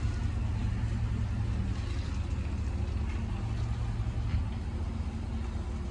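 Ford pickup plow truck's engine idling steadily.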